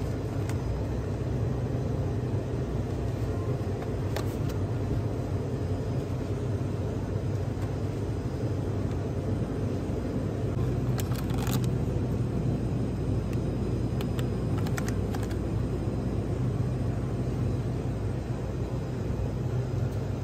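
Steady low hum of an open-front refrigerated display case's cooling machinery, with a few faint clicks.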